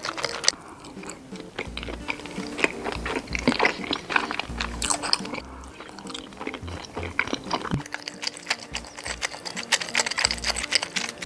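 Close-up chewing and biting: a person eating Korean rice cake (tteok), with many short wet smacks and clicks, over soft background music.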